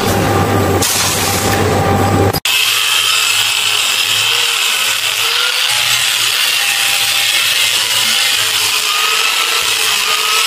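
Angle grinder grinding down a weld seam on steel plate, a steady hissing whine that starts abruptly about two and a half seconds in. Before it there is a steady low buzz with hiss.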